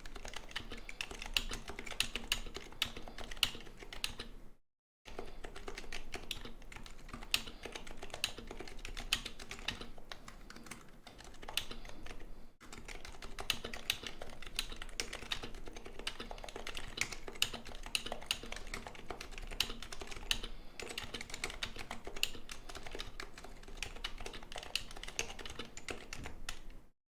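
Continuous fast typing on a Happy Hacking Keyboard Professional Type-S with silenced 45 g Topre electrostatic-capacitive switches. The keystrokes come in a dense run, break off for a moment about five seconds in, and stop shortly before the end.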